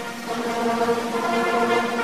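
Orchestral music with brass holding sustained chords; a new chord swells in just after the start.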